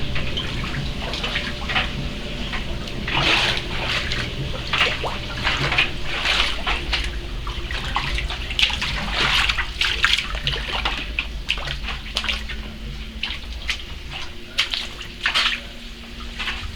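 Storm water pouring and splashing into a flooding basement, an uneven rushing splatter that swells and falls, over a steady low hum.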